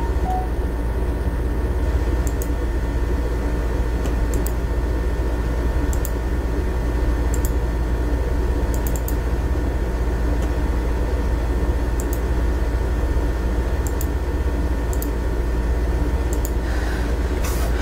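Steady electrical hum and hiss with a deep low drone, broken by faint clicks every second or two.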